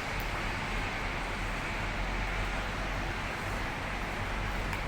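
Steady road traffic noise: an even, unbroken hiss with no distinct events.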